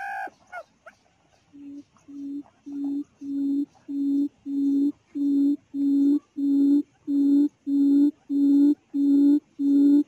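Quail calling: a long series of low hooting notes at one steady pitch, about two a second, growing louder over the first few seconds and then holding loud. A couple of short chirps come just at the start.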